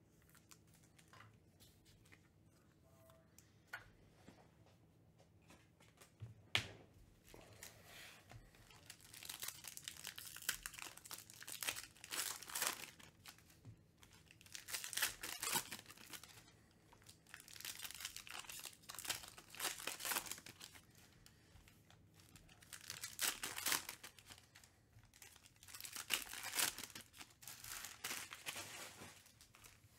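Foil trading-card packs being torn open and crinkled by hand, in bursts of crackling every few seconds. This follows a quieter start with a couple of sharp taps.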